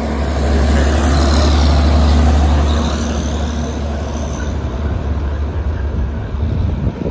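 Isuzu truck's diesel engine pulling a loaded oil tanker semi-trailer, loudest as it passes close about two seconds in, then fading as it drives away.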